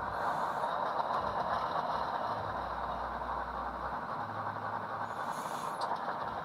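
HO scale model diesel locomotive's sound decoder playing engine sound through its small speaker, a steady noisy rumble with brief hissy bursts about half a second in and again near the end.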